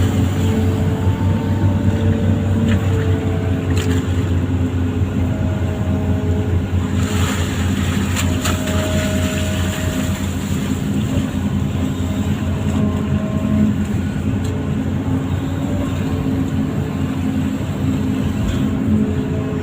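Diesel engine of a Hitachi amphibious long-arm excavator running steadily with a deep, even hum, with a few light clicks about 4 and 8 seconds in.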